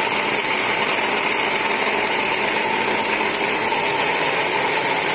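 Small electric blender running steadily at full speed, its motor whine steady, as it purées chopped ginger and kencur with water.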